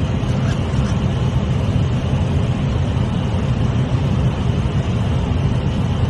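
Steady low rush of noise inside an airliner's flight deck on approach to land: airflow and engines heard through the cockpit, with no distinct events.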